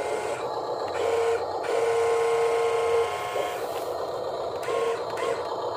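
Small electric gear motor of a Huina 1573 RC dump truck whirring as it tips the bed up, with a whine that comes and goes.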